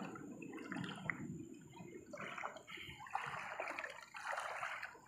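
Shallow river water trickling and sloshing, with a run of splashy bursts from about two seconds in.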